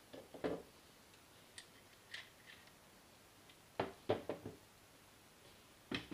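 Parts of an ASG Scorpion EVO airsoft gun being handled: scattered clicks and light knocks, with a quick cluster of three or four sharper knocks about four seconds in and one more near the end.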